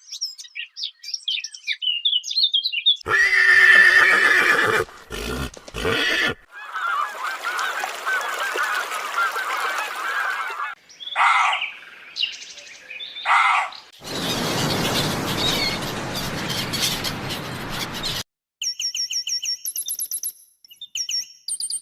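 A string of different animal calls cut one after another, among them bird calls. Near the end comes a run of rapid, repeated high chirps.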